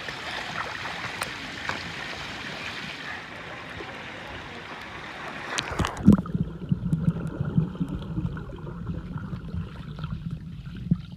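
Swimming-pool water sloshing and splashing at the surface. About halfway through, the sound turns muffled and low as the microphone goes underwater, with dull knocks from the swimmer's strokes.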